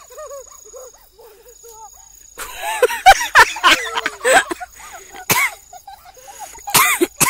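Rural field ambience: a steady high insect drone and faint short chirping calls. A run of loud, harsh cries breaks in about halfway through, and two more come near the end.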